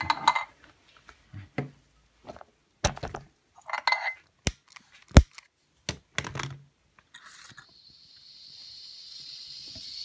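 Metal clinks and taps of a small spirit burner being handled and slid into the firebox of a Georges Carette vertical toy steam engine, with a few sharp clicks midway. In the last couple of seconds a steady high hiss builds up.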